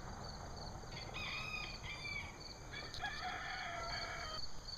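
A rooster crowing in two drawn-out parts, starting about a second in and again near three seconds, over the steady pulsing chirp of crickets.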